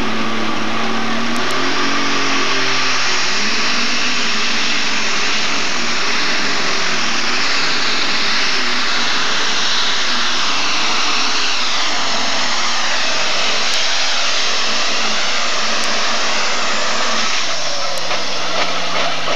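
Super stock pulling tractor's engine running at full power under load during a pull, a loud continuous drone whose pitch wavers up and down.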